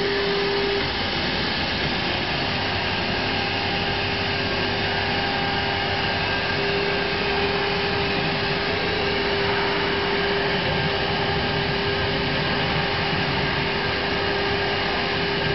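Twin spindles of a two-head CNC router running and cutting into a wooden board: a steady whine over a constant rushing noise.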